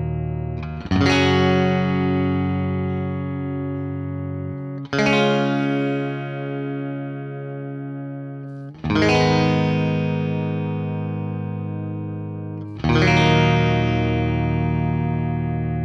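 Electric Telecaster-style guitar on its middle pickup setting: a full chord strummed and left to ring out, four times, about every four seconds. The last chords are played on a thinline Tele with an f-hole body.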